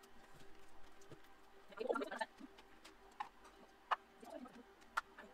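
Faint handling of small cardboard and paper packaging: a short rustle about two seconds in, then a few separate light clicks.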